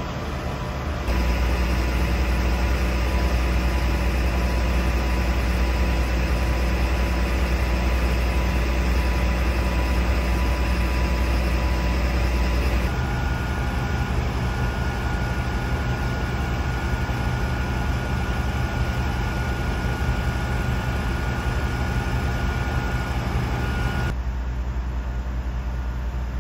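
Steady idling hum of the large diesel engines of parked fire and rescue vehicles, changing abruptly about a second in, about halfway and near the end as one engine gives way to another; a faint steady whine runs through the middle part.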